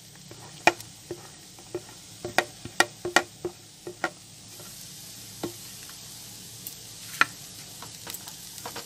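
Chopped onions being scraped off a plate into a hot nonstick kadai with a spatula: a string of sharp taps and knocks of the spatula against the plate rim and the pan. Beneath them is a faint steady sizzle from the spiced gram-flour mixture roasting in the pan.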